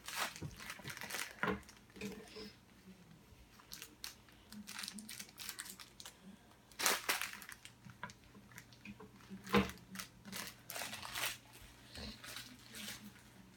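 Funko Mystery Minis blind-box packaging being torn open and crinkled: a string of sharp rips and crackles of cardboard and the foil bag inside. The two loudest rips come about seven and nine and a half seconds in.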